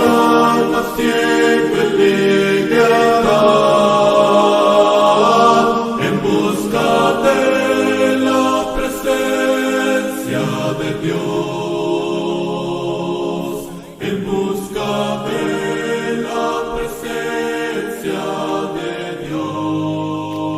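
A group of voices singing a slow worship song in long held notes, with a brief dip about two-thirds of the way through.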